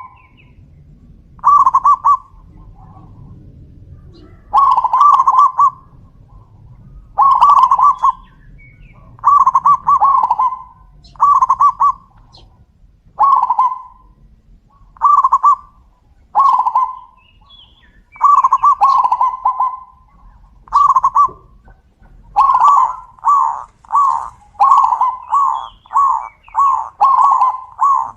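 Zebra doves (perkutut) cooing: loud rolling, trilled coo phrases repeated every second or two, turning into a quicker run of short coos over the last several seconds.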